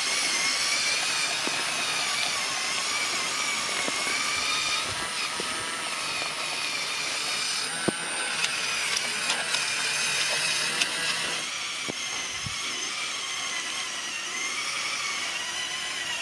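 Small electric motors and plastic gearing of a LEGO Technic model truck whining steadily, the pitch wavering as the load changes, with a few sharp clicks around the middle.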